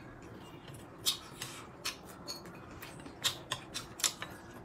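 Eating sounds at a meal: about nine short, crisp clicks and crunches at irregular intervals, closer together in the second half.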